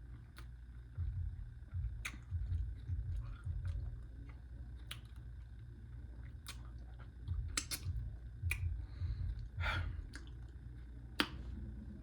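Close-miked open-mouth chewing of a burrito: sharp wet lip smacks and mouth clicks every second or so over low thudding chews that come in two runs.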